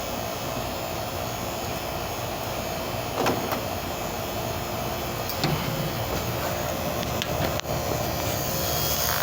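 A steady motor hum, broken by a few short sharp clicks about three, five and a half and seven and a half seconds in.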